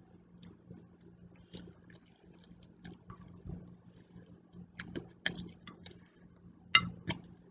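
Eating sounds: a fork tapping and scraping on a dinner plate along with chewing, heard as scattered short clicks, the loudest near the end.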